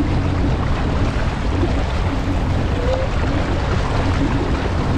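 Sea-Doo Fish Pro personal watercraft engine running steadily at low speed, with water washing past the hull.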